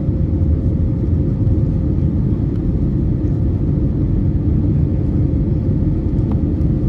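Airbus A321neo cabin noise during the climb-out just after takeoff: the engines and rushing air give a steady low rumble, with a faint steady hum running through it.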